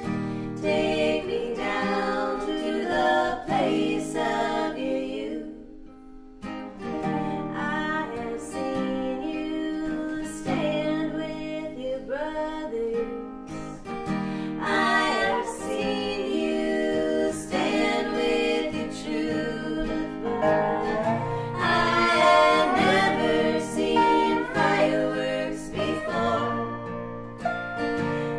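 Americana song performed live: women singing in three-part harmony over acoustic guitar and dobro.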